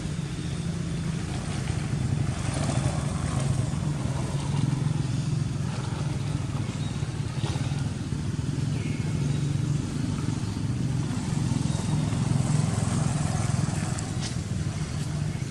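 Steady low mechanical hum, with a few faint clicks.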